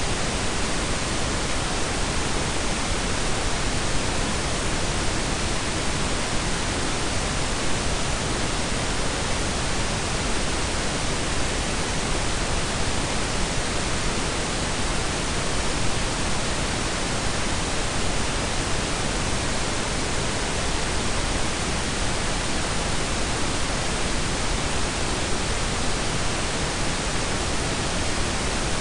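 Steady blend of synthetic pink and brown noise: an even, unchanging hiss with a deep rumble underneath, without any tone or rhythm.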